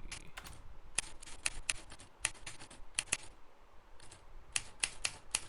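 Typewriter key-strike sound effect playing back: irregular runs of sharp clacks, several a second, with a short pause a little past the middle.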